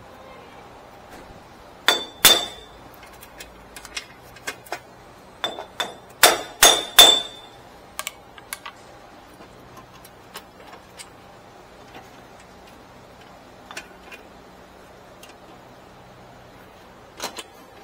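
Sharp metal-on-metal clanks with a ringing tone as a steel tool strikes the wheel hub and bearing assembly to work it loose from the knuckle. There are two clanks about two seconds in, a quick run of four or five around six to seven seconds, and one more near the end, with light ticks between.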